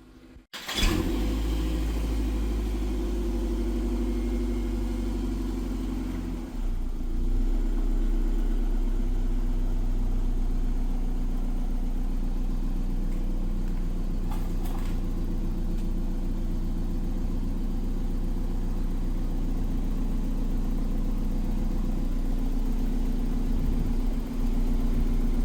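Toyota MR2's engine running at a steady idle, starting abruptly about half a second in and stepping up slightly in level about six and a half seconds in.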